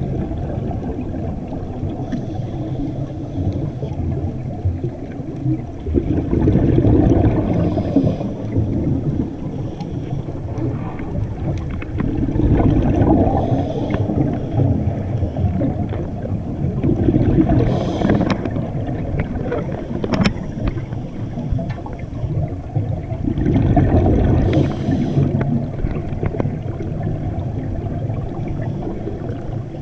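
Scuba diver breathing through a regulator underwater: a low rumble of exhaled bubbles that swells every five or six seconds, with a short hiss of inhalation a few times between them.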